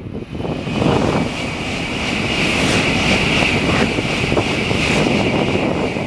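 Tokaido Shinkansen bullet train passing at high speed close by: a loud rushing roar that swells about a second in, with a steady high whine running through it.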